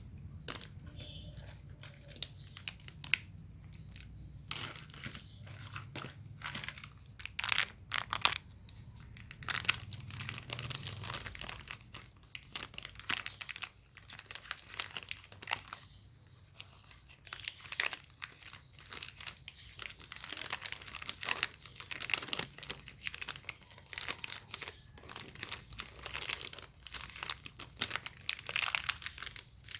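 Chocolate and candy wrappers crinkling and tearing as they are handled and unwrapped, with a dense, irregular crackle throughout.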